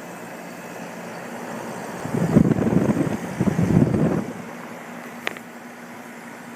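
New Lennox two-stage air conditioner running just after start-up, a steady hum. About two seconds in, a loud rushing noise comes in two surges for a couple of seconds, and a single sharp click follows near the end.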